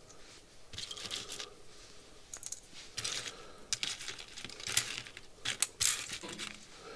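Loose electronic components being handled: metal-tabbed power transistors clicking together in a palm, and small parts rustling and clinking as they are picked through. The sounds come in scattered bursts of rustling with several sharp clicks.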